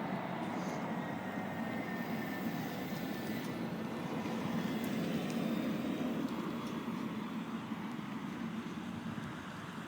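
A road vehicle running, a steady rushing engine and tyre noise that grows a little louder around the middle and then eases off.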